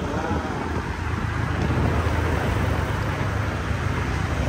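Riding a motor scooter in traffic: the engine runs steadily under wind and road noise.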